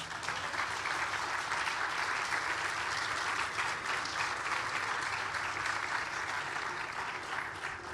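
A crowd applauding steadily for several seconds, fading a little near the end.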